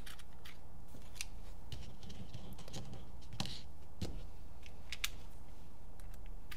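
Scattered small metallic clicks and taps of screws being handled and fitted into a paintball marker's frame, over a steady low hum.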